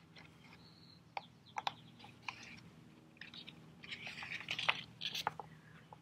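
Pages of a hardcover picture book being turned and handled: a few sharp paper clicks, then a stretch of crinkly rustling as the page is turned over and smoothed flat.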